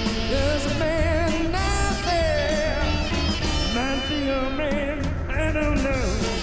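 Rock music with guitar, a steady beat and a singing voice.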